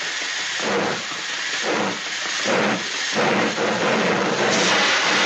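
Cartoon steam-locomotive sound effect: chuffs about a second apart that quicken, then give way to a steady hiss of steam about two-thirds of the way in, like a steam train pulling away.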